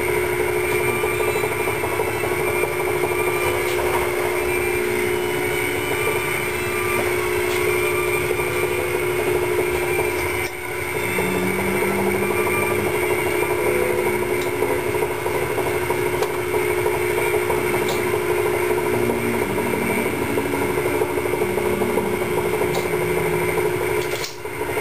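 Steady machine drone in a machine shop: a constant mid-pitched hum with a fainter, higher steady tone above it, running without change.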